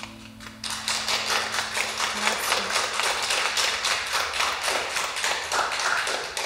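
Hand clapping from a few people at the close of the song, starting about a second in and fading out near the end. Under its start, the Nord Stage 3 keyboard's held final chord dies away.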